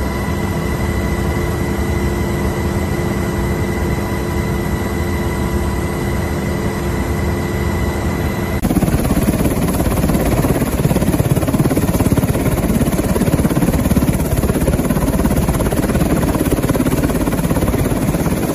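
Black Hawk helicopter noise. At first it is the steady cabin noise of the helicopter in flight, a constant whine over a rumble. About eight seconds in, the sound changes abruptly to the louder, rougher rotor and engine noise of the helicopter running on the ground.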